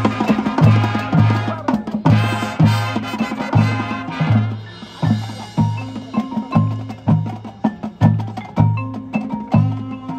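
High school marching band playing live: a steady low bass note pulses about twice a second under full brass chords, thinning after about four seconds to short mallet-percussion notes over the same pulse.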